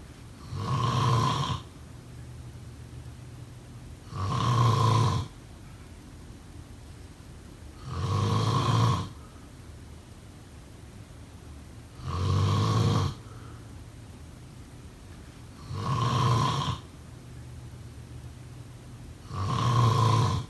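A person snoring: six loud snores, each about a second long, coming regularly about every four seconds, with a quieter low sound between them.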